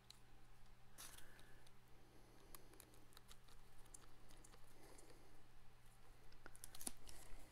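Faint clicks and light rustling from a plastic speaker housing being handled and fitted together, with a cluster of sharper clicks near the end. A low steady hum lies underneath.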